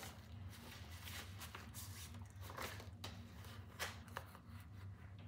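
Paper inner sleeve and cardboard record jacket rustling and scraping in irregular strokes as a vinyl LP in its sleeve is forced into the jacket, a tight fit, over a low steady hum.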